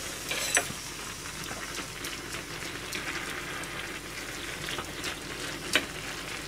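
A saucepan of broth with meat and vegetables cooking on a gas stove, a steady bubbling hiss, with a ladle clinking against the pan near the end.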